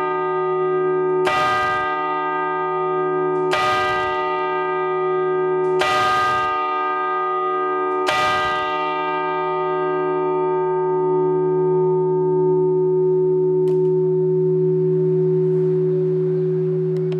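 Church bell cast in 1880, hung fixed and struck by a hammer rather than swung, tolling four strokes a little over two seconds apart. After the last stroke, about eight seconds in, the bell hums on without further strikes.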